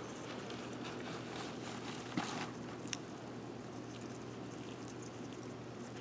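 Faint scratching and a couple of small clicks from a baby blue-tongue skink moving after cockroaches in a plastic bucket, one a little past two seconds in and a sharper one about a second later, over a steady low hum.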